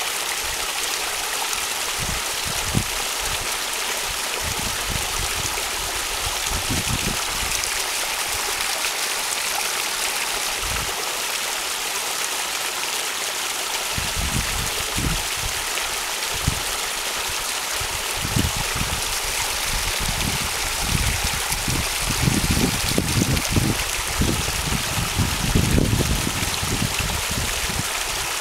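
Sewage overflow from a surcharged manhole, water forced up out of the lid and running across mud into a creek: a steady rush of flowing water. Low, irregular bumps come and go over it, heavier in the second half.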